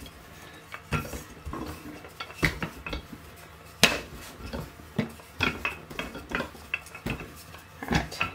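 Wooden rolling pin rolling out dough on a floured stainless-steel bench, with irregular knocks and clatters as it hits the metal, the sharpest about four seconds in.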